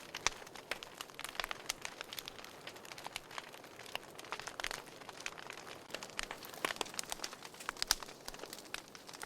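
Wood fire crackling in a fireplace: a soft steady hiss with irregular sharp pops and snaps, a few louder cracks about a third of a second in and again near seven and eight seconds.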